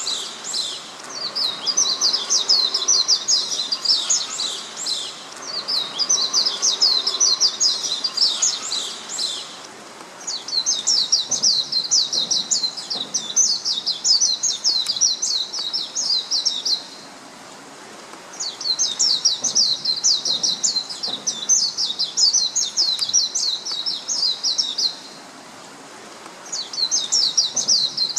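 Oriental white-eye singing: long phrases of rapid, high, twittering notes lasting several seconds each, with short pauses between them.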